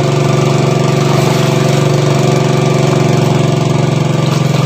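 Small engine-driven water pump running steadily at a constant speed, draining a fish pond.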